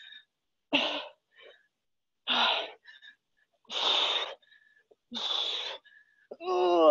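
A woman breathing hard from exertion while pressing a tyre overhead: four loud, heavy breaths about a second and a half apart.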